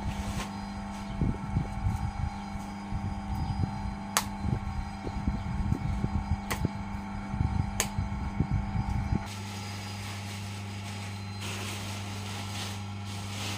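Wet clay being slapped and pressed onto a potter's wheel head: a run of irregular dull thuds with a few sharp clicks, over a steady electric hum. The thuds stop suddenly after about nine seconds, and near the end a plastic cover over the clay rustles.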